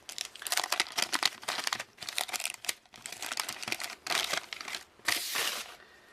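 Wax paper wrapper of a 1988 Topps football card pack crinkling and tearing as the pack is opened: a dense run of quick crackles that stops shortly before the end.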